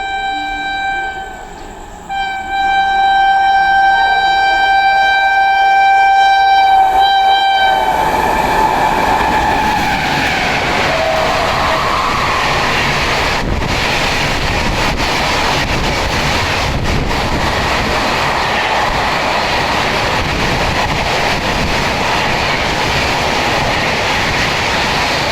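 Twin-tone air horn of a WAP7 electric locomotive, blown in a short blast and then a long one of about six seconds. Then the express train passes at high speed, about 130 km/h, with a steady loud rush of wheels and coaches and a clatter of wheels over rail joints.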